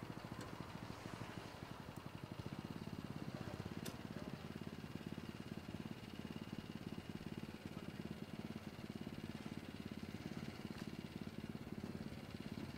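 Small engine of a motorised tracked carrier running with a rapid, steady beat. A single sharp click about four seconds in.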